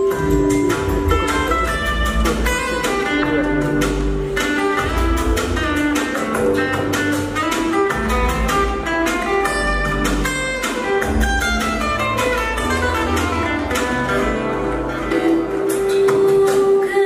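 Dance music playing, with quick runs of notes stepping up and down over a steady bass line.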